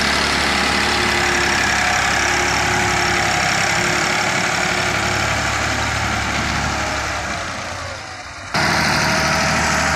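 Ford 4610 tractor's three-cylinder diesel engine running steadily as its front blade pushes earth. It fades away about seven seconds in, then comes back suddenly at full loudness near the end.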